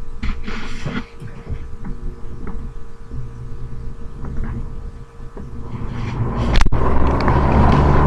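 Low, steady rumble of vehicle traffic that swells louder about six seconds in, with a single sharp click shortly after.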